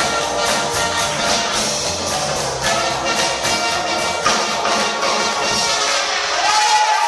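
Live dance band playing with horns over a steady drumbeat. About six seconds in the beat and bass drop away and a single high note is held.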